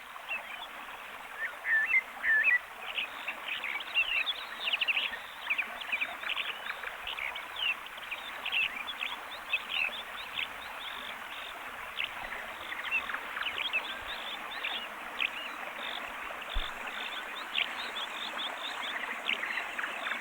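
Chorus of small birds chirping rapidly and continuously over a steady hiss, with a few louder rising chirps about two seconds in.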